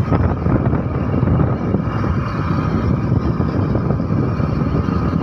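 Steady wind rush buffeting the microphone while riding a motorcycle at speed, with the low rumble of the bike and road beneath.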